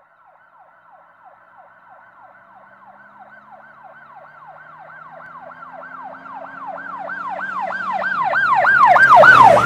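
Police car siren on a fast yelp, about three falling sweeps a second, growing steadily louder as it approaches. It passes close near the end with a rush of engine and road noise.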